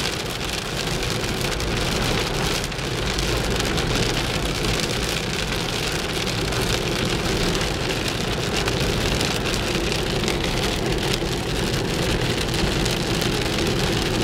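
Steady rain on a moving car, with the car's low engine and road rumble underneath.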